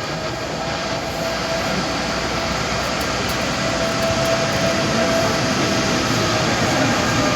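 A train running on the rails, its rumbling noise growing steadily louder as it approaches, with a faint steady tone above it.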